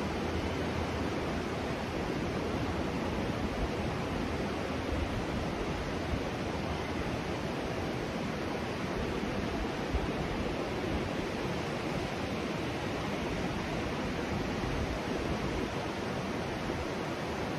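Steady rushing of ocean surf, an even wash of noise with no distinct breaks.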